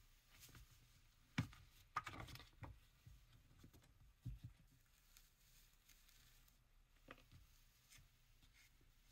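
Mostly near silence, broken by a few faint, short rustles and taps of paper and card being handled while a journal signature is hand-stitched. The clearest come about a second and a half and two seconds in.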